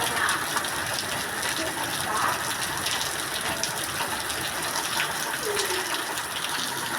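Heavy rain falling steadily: an even rush of water with the scattered ticks of drops striking surfaces.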